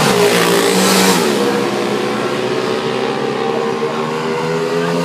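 Racing motorcycle engines at high revs. One passes with a falling pitch right at the start, another drops in pitch about a second in, and engine sound carries on steadily after that.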